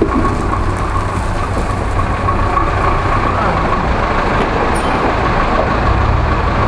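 GAZ-66 off-road truck's engine running steadily as the truck drives slowly toward and into a concrete underpass.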